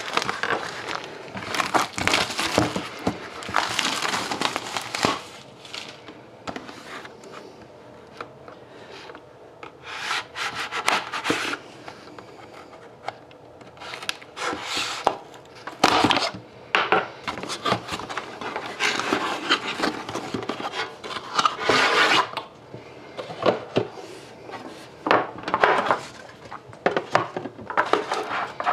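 Hands working a sealed cardboard trading-card box open: irregular bursts of scraping and rubbing of cardboard as the box is handled and its inner box is slid out of the sleeve.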